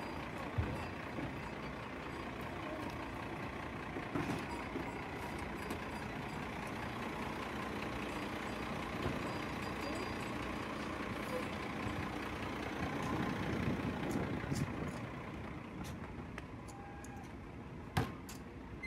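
Rear-loading garbage truck's engine running steadily, with a few short knocks and a sharp clunk near the end.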